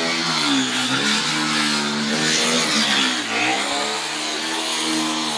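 Corded handheld electric power tool cutting into wood. Its motor runs steadily and its pitch sags twice under the load of the cut, then picks back up.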